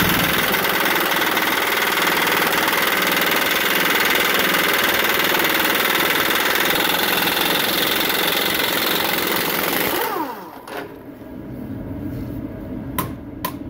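Air impact wrench hammering on a rust-seized rear U-bolt nut of a 1968 Chevy C-10 pickup, backing it off. It runs steadily for about ten seconds, then stops suddenly, with a few light clicks near the end.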